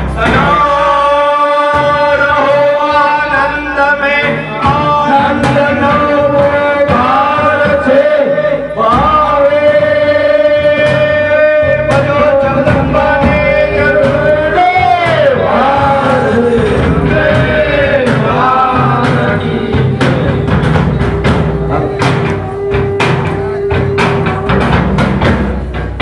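Devotional aarti music: long held, sung-sounding notes that bend in pitch, with sharp percussion strokes coming in and growing quicker over the last several seconds.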